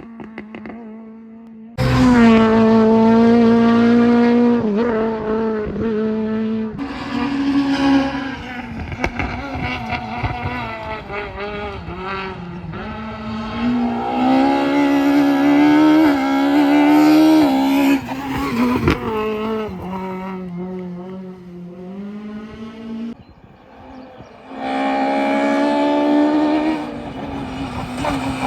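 Rally cars driven hard on a stage, engines revving high and rising and falling in pitch through gear changes and throttle lifts. The sound comes in several passes that start abruptly, about two seconds in, near seven seconds and again near the end.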